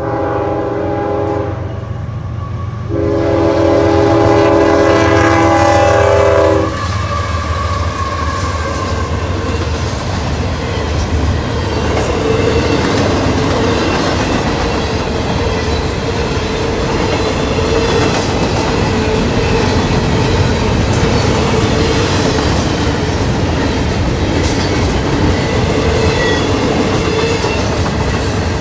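CSX freight diesel locomotive horn blowing the close of its grade-crossing signal: a blast, a brief pause, then a longer, louder blast that cuts off about seven seconds in. A double-stack intermodal freight train follows, rolling past with a steady rumble and the clickety-clack of wheels over the rail joints.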